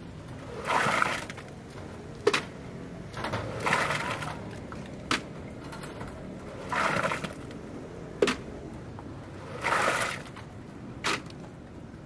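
Rhythmic manual construction work: a short scrape followed by a sharp knock, repeating about every three seconds, like a hand tool working and tapping on concrete formwork.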